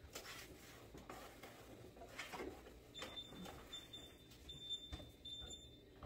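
Faint rustling and light knocks of a cloth wiping and things being handled inside an open refrigerator. In the second half a faint high beep repeats about once a second.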